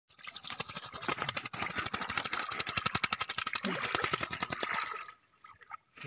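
Common myna bathing in a shallow puddle, beating its wings through the water in a rapid, continuous run of splashes that stops about five seconds in.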